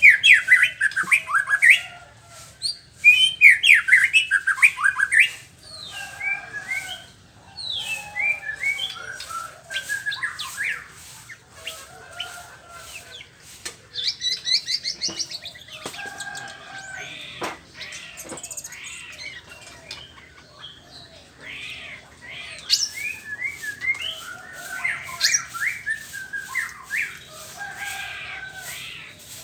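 White-rumped shama (murai batu) singing a long, varied song of rapid whistled phrases and trills. It is loudest and densest in the first few seconds, with a high fast trill about halfway through.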